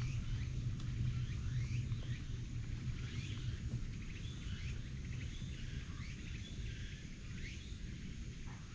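Small birds chirping repeatedly over a low steady rumble that fades slightly over the course of the sound.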